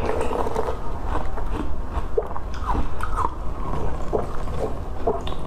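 Wet sucking and slurping at a block of frozen milk ice, with short, irregular squeaky mouth sounds as the lips work against the melting surface.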